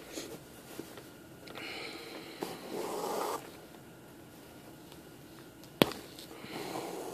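Soft rustling and hissing from hands handling embroidery yarn and cloth in a hoop, in a few short spells, with one sharp click a little before six seconds in.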